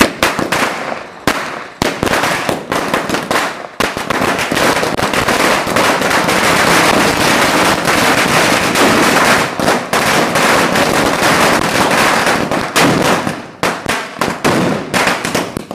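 A 1000-wala chain of firecrackers going off in a rapid stream of sharp cracks. The bangs run together into a continuous crackle through the middle and thin out into separate loud bangs near the end.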